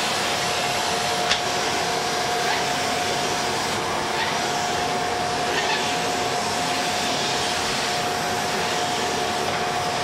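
Canister vacuum cleaner running steadily, a constant whine over its rushing air noise, as its wand is worked over the floor.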